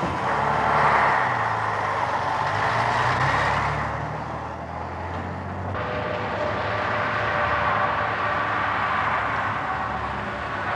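Diesel engine of a MAN 19.361 truck running with a low, steady hum. About six seconds in, the sound changes to quieter, steady vehicle noise.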